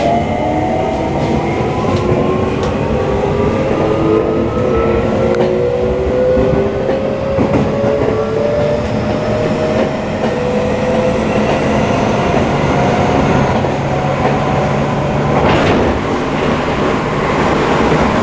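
Seibu 20000-series electric train running, heard from inside the passenger car: a steady rumble of wheels on rail, with a whine from the traction motors that rises slowly in pitch as the train picks up speed. There is a short, louder rush of noise near the end.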